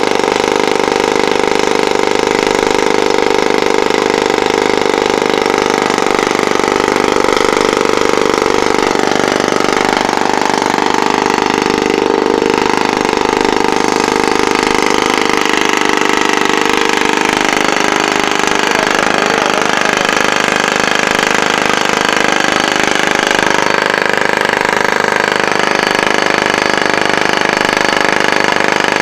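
Rock drilling rig boring a vertical hole into travertine marble: the drill runs loudly and steadily, a dense mechanical rattle over a steady machine hum.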